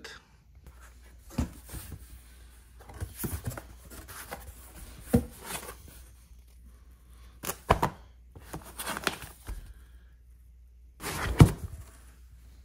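Cardboard box and foam packaging handled during unboxing: scattered knocks, thuds and rustling. The loudest thud comes near the end.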